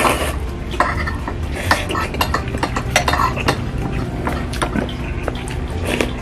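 Close-up eating sounds: a man slurping thick lomi noodles, then chewing with many wet smacks and clicks, and metal cutlery clinking in a glass bowl.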